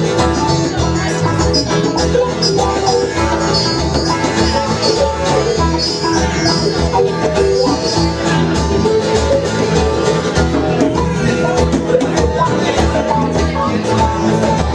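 Live band playing an instrumental break without singing: plucked strings over a steady beat.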